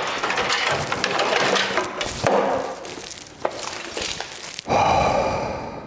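Brittle old plastic trim and wiring crackling and clicking as they are worked loose by hand, dense at first and then sparser. Near the end comes a short, louder, hissing noise with a steady tone in it.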